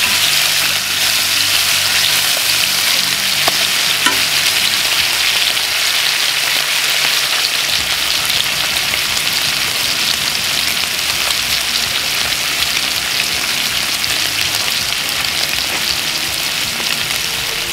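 Bacon strips sizzling in hot rendered fat in a cast iron skillet over wood coals: a loud, steady, crackling hiss.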